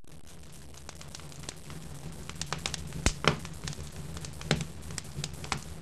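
Fire crackling: a steady low rumble with irregular sharp pops, the loudest about three seconds in and again about four and a half seconds in.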